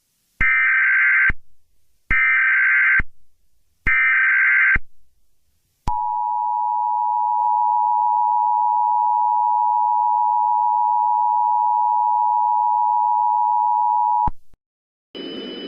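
Emergency Alert System header: three short bursts of SAME digital data tones, each just under a second, followed by the EAS two-tone attention signal (853 and 960 Hz together), held steady for about eight seconds and then cutting off abruptly.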